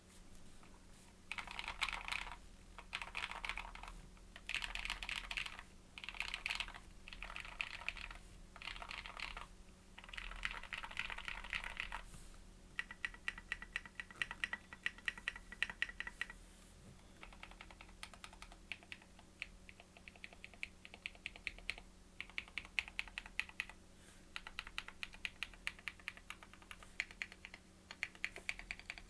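Anne Pro mechanical keyboard with lubed and filmed Invyr Holy Panda tactile switches, SA-profile keycaps and a foam-filled case, being typed on. For about the first twelve seconds there are dense flurries of rapid keystrokes about a second long with short gaps between them, then steadier typing with distinct separate keystrokes.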